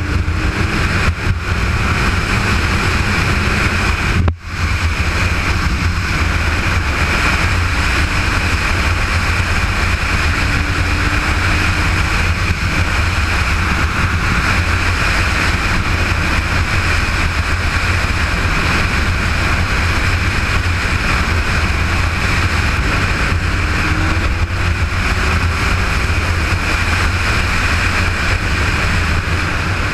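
Motorcycle running at steady road speed, heard from on board: a constant engine drone mixed with wind and road noise. The sound briefly drops out about four seconds in.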